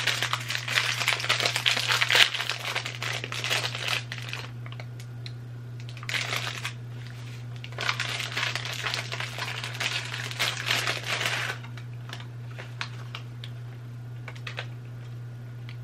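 Candy packaging crinkling and rustling as a box of bite-sized chocolate-covered caramels is handled and opened, in two spells of a few seconds each, then a few faint ticks. A steady low hum sits underneath.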